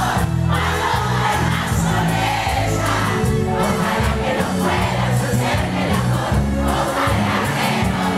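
Live cumbia music from a band, with a crowd singing along.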